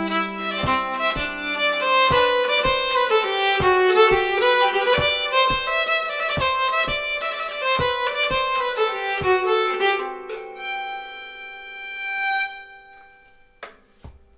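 Nyckelharpa bowed through the closing phrases of an Uppland bondpolska, with a low knock about twice a second keeping time. About ten seconds in the tune stops on a held chord that rings on, the sympathetic strings fading out, and a single sharp knock comes near the end.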